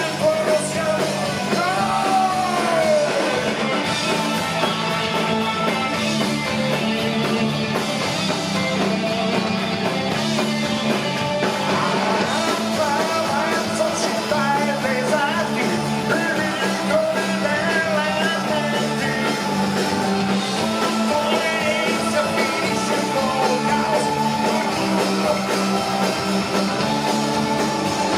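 Rock band playing an instrumental passage: an electric guitar lead line with bends over bass and drums.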